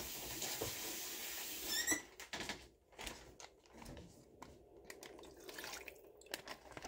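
Kitchen tap running water into a plastic bag for about two seconds, then shut off with a short squeak. After that come faint knocks and handling noises.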